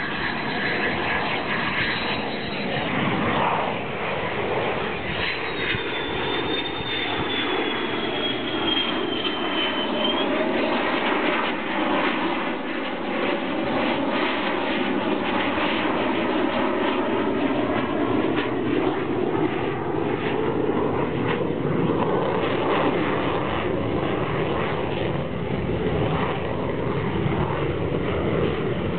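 F-16 fighter jet's afterburning turbofan engine flying a display pass overhead: continuous jet noise whose pitch slowly dips and then rises again as the aircraft moves across the sky.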